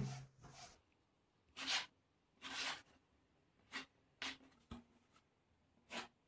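Plastic dough scraper cutting through soft dough and scraping the countertop. About six short scrapes, one longer one near the middle.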